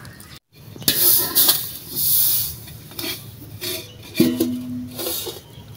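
Roasted sesame seeds poured from an aluminium saucepan onto a metal tray, a hissing rattle of seeds on metal. About four seconds in comes a metal clank that rings briefly.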